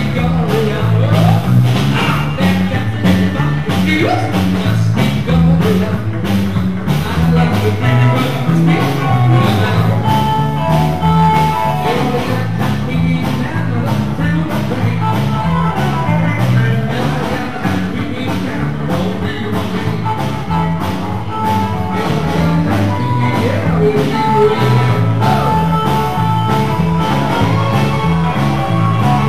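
Live rock and roll band playing: a steady walking line on electric bass guitar, hollow-body electric guitar and drums, with singing.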